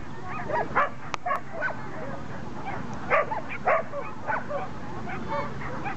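Dogs barking and yipping, short calls following one another every half second or so.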